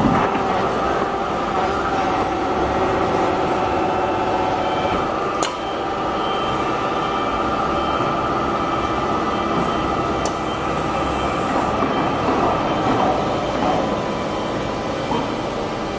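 55-ton dental floss making machine, a vertical hydraulic press, running steadily with a mechanical hum made of several steady tones over a noisy drone. Two sharp clicks stand out, about five and ten seconds in.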